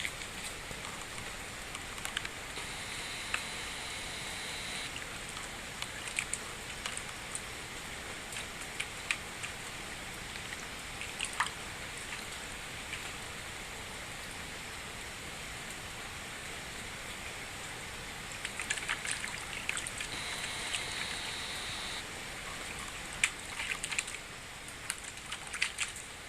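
Steady running, trickling water with scattered small ticks and splashes; a faint high whistle comes in twice, a few seconds in and again near the end.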